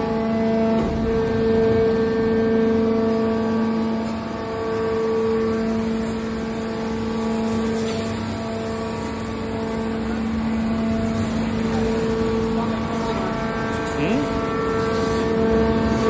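Y81K-630 hydraulic scrap-metal baler running, its electric motors and hydraulic pumps giving a steady hum with a whine an octave above it.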